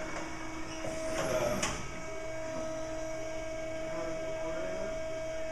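A steady machine hum holding an even pitch, with a few brief knocks about a second in.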